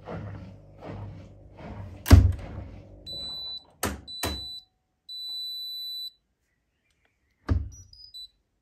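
Hotpoint Aqualtis washer dryer at the end of its cycle: rustling and knocks, then a loud thud about two seconds in. Its control panel then beeps several times, with long high beeps broken by two sharp clicks. Near the end comes another thud, followed by a quick falling three-note chime.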